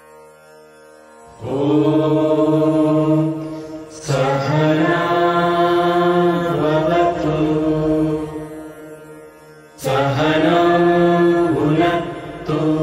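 Several voices chanting a Hindu morning prayer together in long, held notes, in three phrases with short breaths between them.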